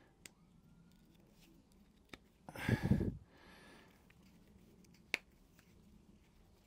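A few small, sharp clicks of a flathead screwdriver and a tiny screw working at the throttle assembly of a small-engine carburettor, with a louder half-second burst of noise about two and a half seconds in.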